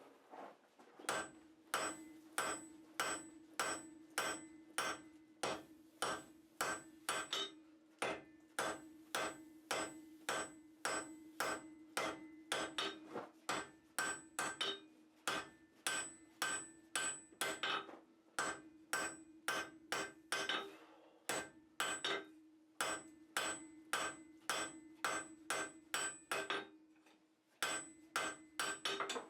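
Blacksmith's hammer striking steel on an anvil in a steady rhythm of about two blows a second, with a ringing tone carried under the blows. There are a few short pauses between runs of strikes.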